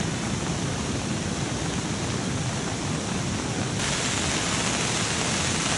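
Heavy rain falling, a steady hiss that brightens suddenly about four seconds in.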